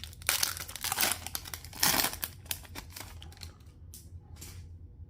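A trading-card pack wrapper being torn open and crinkled: irregular rustling and tearing bursts, loudest about two seconds in, with lighter rustles near the end.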